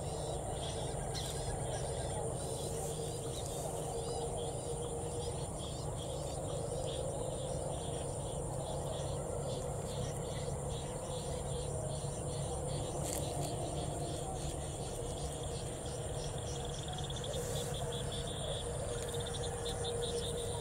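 Evening rice-paddy chorus of crickets and frogs: a steady high insect trill with rapid pulsed chirping, going on evenly throughout.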